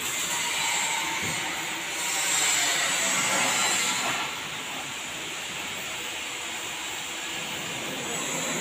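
Steady hiss of TIG welding along a steel pipe seam, a little louder for a couple of seconds in the middle.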